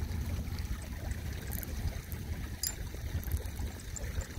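Wind buffeting the microphone, an uneven low rumble, ahead of an approaching storm. A few faint, short high clicks sound over it.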